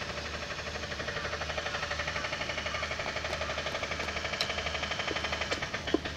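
A small motor running with a fast, even throb and a steady low hum, with a few sharp clicks near the end.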